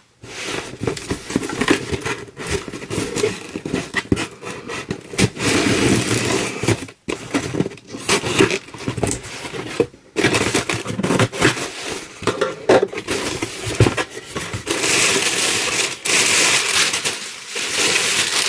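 Subscription box being opened and its packaging handled: irregular crackling, scraping and tearing with occasional knocks.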